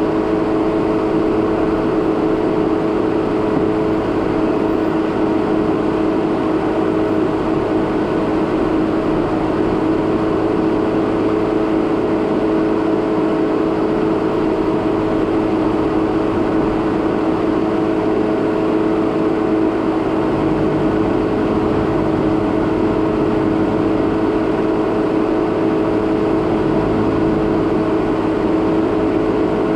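2017 Jeep Renegade Trailhawk driving steadily along a dirt road: a constant engine hum with tyre and road noise.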